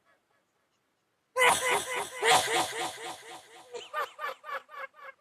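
A person's recorded laughter edited with sound effects: a rapid run of pitched "ha" pulses, about five or six a second, bursting in suddenly after a second and a half of silence, loud at first and then fading.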